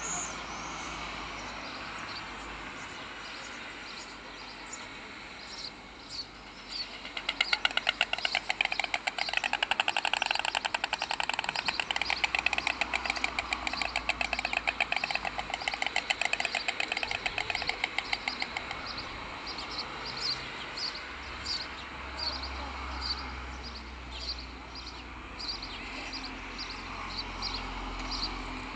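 White storks bill-clattering at the nest as one adult relieves the other, the pair's greeting at a nest changeover. The fast rattle of clicks starts about seven seconds in and lasts about ten seconds. Small birds chirp faintly throughout.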